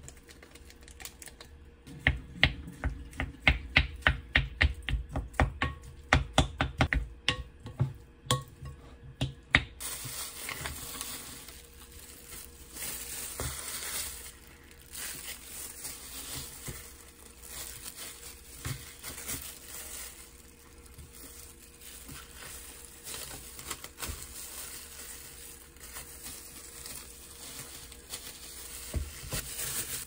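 Cooked rice being mixed with seasoning in a glass bowl: quick, even utensil strokes about three a second for several seconds, stopping abruptly. Softer rustling and handling noises follow.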